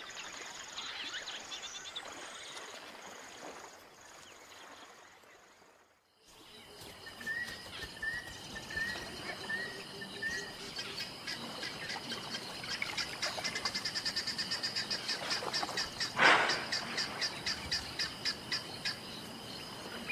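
African bush ambience of insects and birds: a high pulsing call, then, after a brief drop to near silence about six seconds in, a bird's string of five short chirps over steady insect buzzing and fast, even trilling pulses. About sixteen seconds in, a short, loud, noisy sound stands out above the rest.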